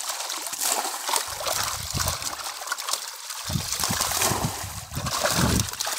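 Water poured from a bowl splashing and trickling over a net full of fish, with a steady hiss and a few dull low thumps as the fish are handled.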